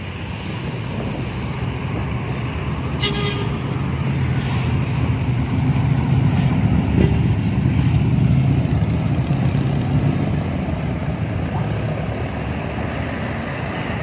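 Laju Prima Hino bus engine running as the bus drives close past, growing to its loudest around the middle and then easing off, among other road traffic. About three seconds in there is a short horn toot.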